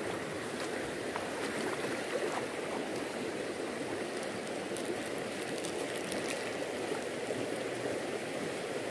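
Fast-flowing river current rushing steadily past the bank, with a few faint clicks.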